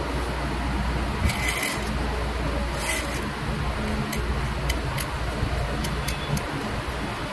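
Pointed metal engraving tool scratching a pattern into the lacquer of a turned wooden piece in short strokes, two of them louder about one and a half and three seconds in. A steady low hum runs underneath.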